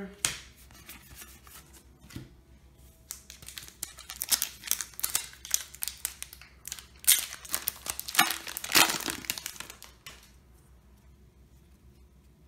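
Foil wrapper of a Yu-Gi-Oh! booster pack crinkling and tearing as it is ripped open by hand. The crackling starts about three seconds in, is loudest near the middle, and stops a couple of seconds before the end.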